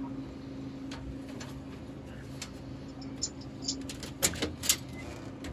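Metal parts on the inside of a vending machine door clicking and tapping as they are handled and worked loose, with a quick cluster of sharper clicks a little past four seconds in, over a steady low hum.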